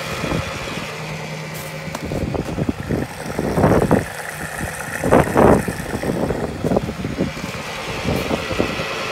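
Diesel fuel dispenser's pump running noisily with a steady hum as it delivers fuel through the nozzle into a car's tank. Two louder rushing swells come about three and a half and five seconds in.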